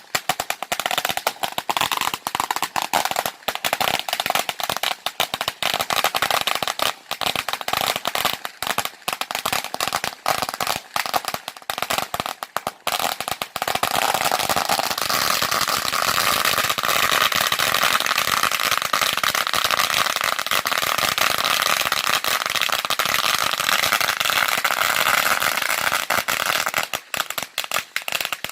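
Long strings of firecrackers going off in a rapid, continuous crackle of pops. There are brief gaps in the first half; from about halfway the crackle runs unbroken until near the end.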